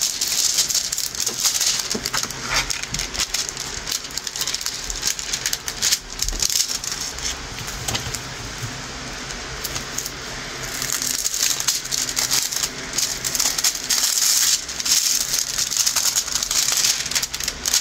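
A diamond-painting kit being unpacked by hand: its plastic film and packaging crinkle and rustle, with small rattling clicks throughout, louder in the second half.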